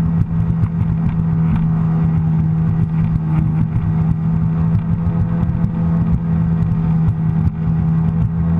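Sea-Doo personal watercraft engine holding a steady drone at cruising speed, about 30–35 mph, with water rush and frequent small knocks as the hull rides over light chop.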